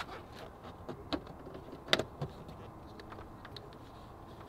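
A few light clicks and taps as a wire is pressed under a car's plastic door-sill trim and rubber door seal by hand, the sharpest about two seconds in.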